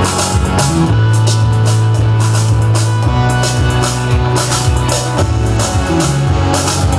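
A rock band playing live with no singing: drum kit with regular cymbal strokes, guitar, and long held bass notes.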